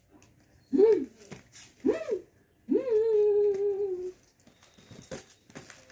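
A baby's voice: two short rising-and-falling coos, then one longer held vocal sound lasting over a second, with a few light clicks and rustles near the end.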